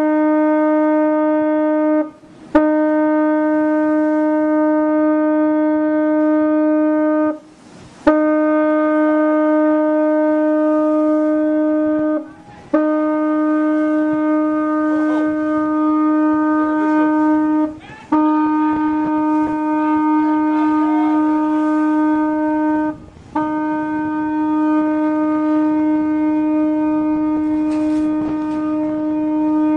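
A ship's horn blown in long blasts, one after another with only short breaks between them, each blast holding one steady pitch. It is sounded as a warning while a beam trawler bears down on collision course.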